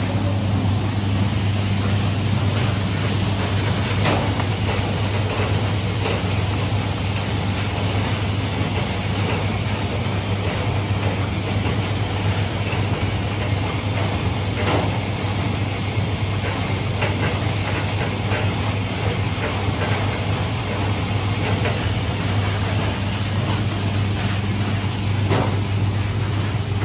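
Steady low electric hum and running noise of a mandarin sorting machine's motors and roller conveyor, with a few light knocks scattered through.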